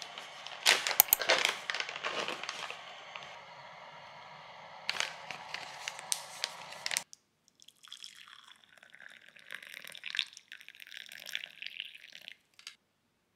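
Sharp clinks and soft liquid sounds at a bowl of soy-milk noodle soup for the first half. After a short break, water is poured into a glass mug over a green tea powder stick for about five seconds.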